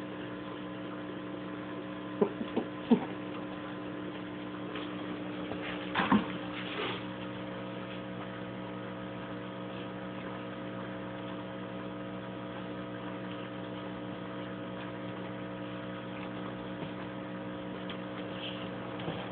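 Steady electrical hum made of several held tones, broken by three sharp clicks between two and three seconds in and a louder double knock about six seconds in.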